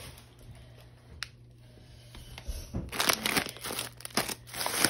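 Plastic snack packets crinkling as a hand moves and rearranges them. After a quiet start with a single click, a busy run of crinkling begins about three seconds in.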